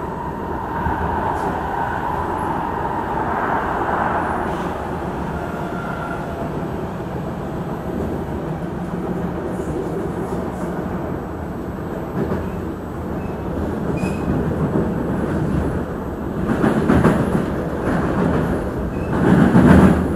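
Singapore MRT metro train running at speed, heard from inside the carriage: a steady rumble of wheels on rail, with a faint high tone over it in the first few seconds. The rumble swells louder and rougher twice in the last few seconds.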